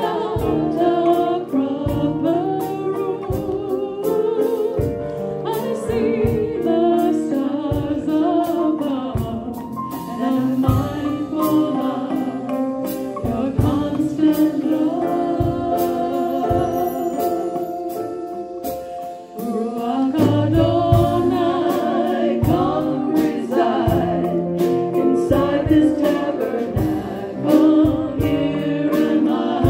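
Live worship band playing a Messianic worship song: singers over piano with a steady beat. The music thins briefly about two-thirds of the way through, then comes back fuller.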